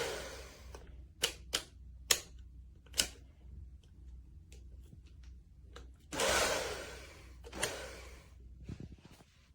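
Ionic hair dryer's fan and airflow dying away as it is switched off, followed by a series of sharp clicks and knocks as the dryer is handled. About six seconds in it blows again briefly, then a few more clicks.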